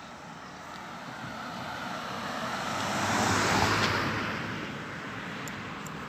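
A car driving past on the road, its tyre and engine noise growing to a peak a little past halfway and then fading away.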